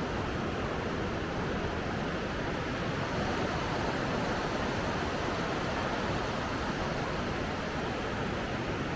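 Steady rush of flowing water, an even roar that neither starts nor stops.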